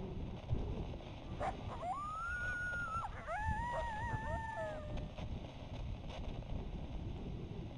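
Wind buffeting the microphone, with an animal's two drawn-out, wavering high calls between about one and a half and five seconds in, the second with two pitches at once.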